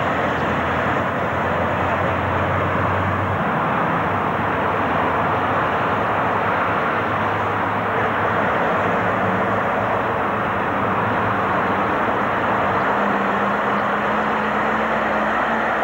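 Diesel engines of articulated lorries running as they pull slowly out of a lorry park, over a steady hiss. The low engine note shifts as one lorry moves off and another, a Scania 3-series tractor unit, comes past.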